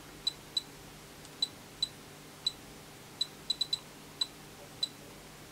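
Short high beeps from the Miniware MDP-P906 power supply's buzzer, about a dozen at uneven intervals, one for each step of its adjustment dial as the voltage setting is wound up.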